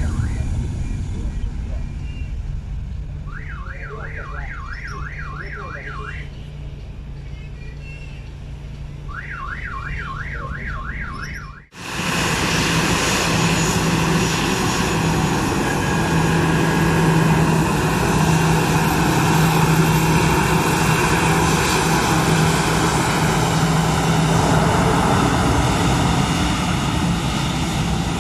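Airbus A320-family jet engines fading as the airliner moves away down the runway, with two short bursts of a rapidly warbling electronic alarm in the lull. After a sudden cut, another A320's jet engines run loud and steady with a low hum as it taxis close by.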